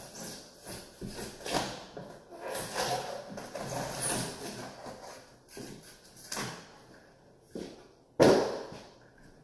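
A large adhesive sheet being peeled and torn off a wall in a run of rustling, crackling pulls, with one loud knock about eight seconds in.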